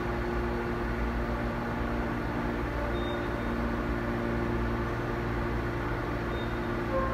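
Seoul Line 5 subway car standing at a station with its doors open: a steady hum and drone from the car's onboard electrical and ventilation equipment.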